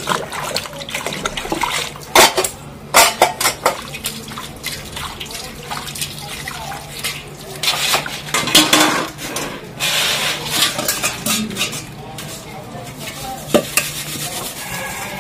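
Stainless-steel utensils being hand-washed: bowls and pots clank and ring against each other and the steel tub at irregular moments while they are scrubbed and rinsed in water.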